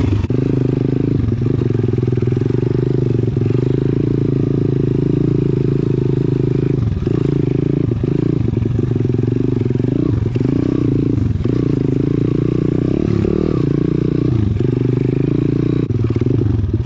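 Pit bike's single-cylinder four-stroke engine running loud and hard on the move, its note dipping briefly and picking up again several times.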